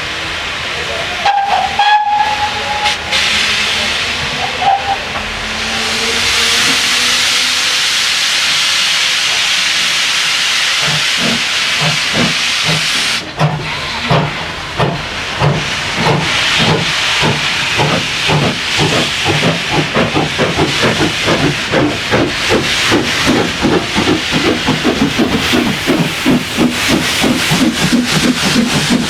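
Two 0-6-0 steam locomotives: a short whistle near the start, then a steady hiss of steam. About halfway through, the exhaust chuffs begin and quicken steadily as the engines pull away.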